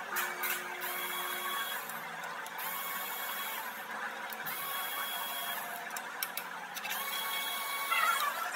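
Small cordless power tool spinning bolts out of the intake manifold in several short runs of about a second each. Its whine rises as it speeds up and drops as it stops, with a few clicks between runs.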